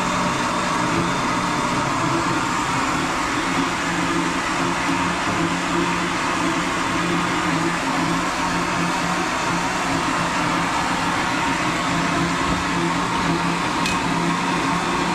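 Electric kitchen blender running steadily, blending fresh coconut flesh with water into coconut milk. It stops abruptly at the very end.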